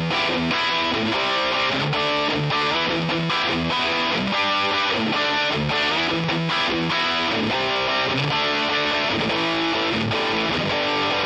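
Background music: a guitar-driven instrumental track.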